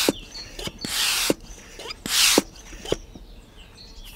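FX three-stage stirrup pump being worked by hand to charge a PCP air rifle: each stroke gives a short rush of hissing air, about one every second and a bit, with small clicks of the mechanism between strokes. The strokes stop after about two and a half seconds.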